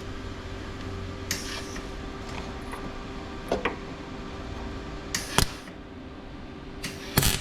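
A MIG welder tack-welding a small steel patch plate onto a car body: a few short bursts of welding spaced seconds apart, the loudest near the end, over a steady hum.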